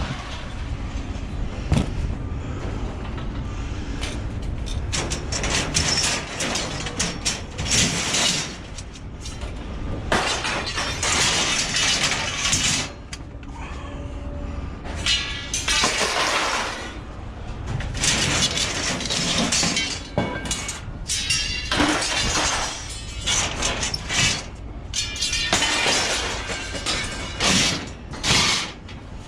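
Pieces of scrap metal clattering and crashing as they are thrown and dragged, in repeated irregular bursts, with a few pieces briefly ringing.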